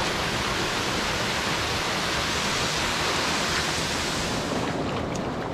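Steady rush of falling water from a hot-spring waterfall, an even hiss-like noise. Near the end the higher part of the rush fades and a few small clicks come in.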